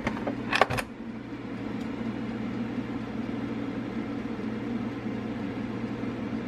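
Electric pressure rice cooker's lid lock handle turned and the lid unlatched: two sharp clicks a little over half a second in, then a steady low hum.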